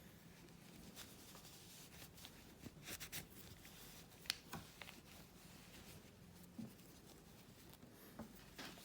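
Faint rubbing of a Cape Cod polishing cloth buffing a sonic screwdriver prop, with scattered light clicks and scuffs as it is handled, the sharpest about four seconds in.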